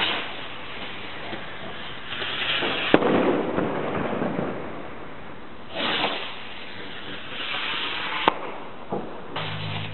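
Fireworks rockets going up with rushing hisses, four in all, and sharp cracks of bursting charges, the loudest about three seconds in and another about eight seconds in. A low steady hum starts just before the end.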